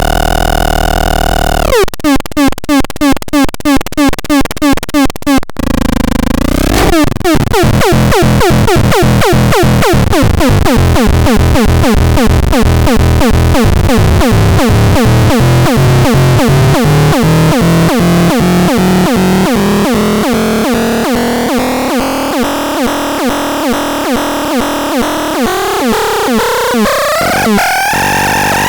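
Electronic synthesizer test tones: a steady buzzy tone, then about two seconds in a tone pulsing a few times a second, then a fast repeating pulse whose pitch slowly sweeps upward.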